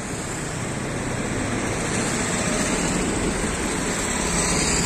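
Street noise from a motor vehicle engine running nearby, a steady rush with a low hum, growing slightly louder toward the end.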